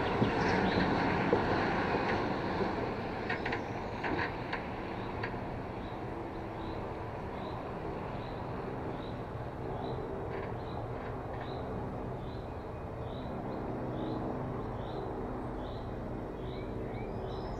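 Diesel engine of a Mercedes hook-lift fire truck carrying a mobile large-fan container, running as the truck pulls away and turns slowly, a little louder in the first few seconds. Through the second half a short high chirp repeats about every two-thirds of a second.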